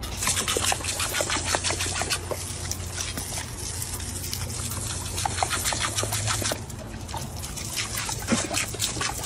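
Water jetting from a garden hose spray nozzle and splattering on a dog and concrete, full of small splashes and spatters, with a steady low rumble underneath.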